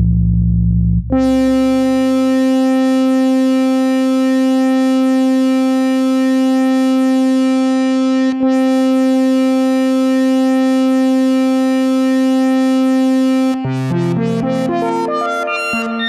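Microtonal synthesizer music in five-tone equal temperament (5-TET). After about a second of low bass notes, a single synth note is held for about twelve seconds, with a brief break about eight seconds in. Near the end it gives way to a quick run of short notes at shifting pitches.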